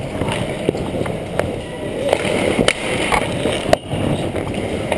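Ice hockey skates scraping and carving on rink ice, with several sharp clacks of sticks and puck, and players' voices in the background.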